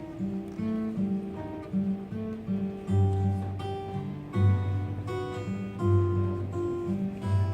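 Acoustic guitar duet: fingerpicked melody notes over a regular, recurring bass note, in a slow, even rhythm.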